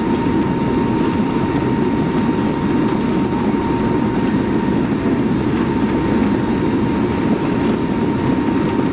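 Military transport aircraft's engines and slipstream heard from the open jump door: a loud, steady rushing drone with a constant thin high tone running through it.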